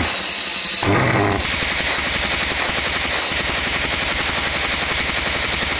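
Propane-fired pulse jet engine running: a loud, rapid, steady train of combustion pulses, settling into an even rhythm about a second in.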